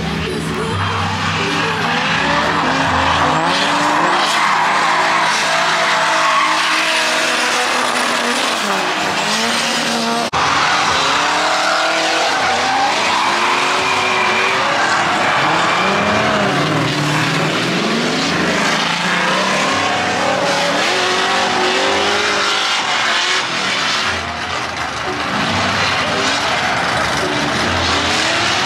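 Drift cars at full slide: engines revving up and down hard with a steady hiss and squeal of tyres.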